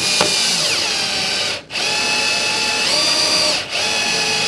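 Bosch DDS181 18-volt cordless drill/driver running with a Phillips bit while driving a small screw. The motor whine drops in pitch about a second in as it loads, and it stops and starts again twice.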